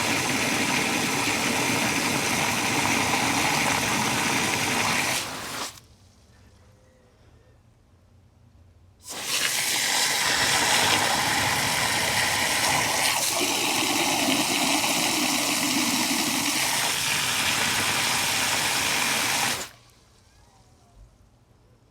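Water gushing in two long stretches, one about six seconds and one about ten, each stopping abruptly, with a quiet gap between them.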